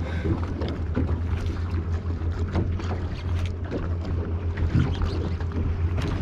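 Boat motor running with a steady low hum, with scattered light knocks and clicks over it.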